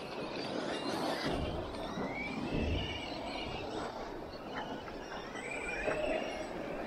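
Electric radio-controlled car being driven: its brushless motor whines, rising and falling in pitch as the throttle is worked, over a steady rushing noise.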